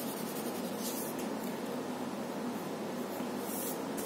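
Pen scratching on graph paper in a couple of brief strokes, lightly shading in a triangle, over a steady room hiss.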